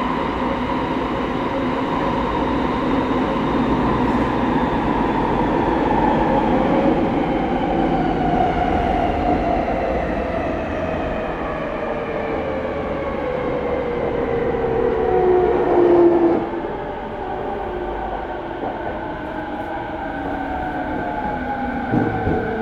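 Rinkai Line 70-000 series electric train running, its traction motor whine falling steadily in pitch as it slows, over wheel and track rumble. The loudest whine swells and then cuts off abruptly about sixteen seconds in, and a short knock follows near the end.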